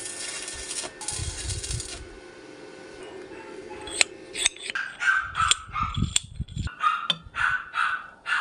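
Stick-welding arc crackling and hissing for about two seconds over a low steady hum. From about five seconds in, a dog barks repeatedly, roughly twice a second, louder than the welding.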